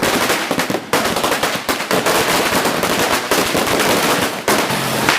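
Sinturon ni Hudas (Judas' belt) firecracker string going off: a fast, unbroken run of loud cracking bangs, many to the second, with brief slackenings about a second in and again near the end.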